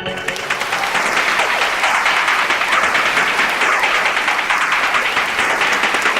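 Audience applauding: many people clapping in a dense, steady patter that takes over as the orchestral music stops at the start.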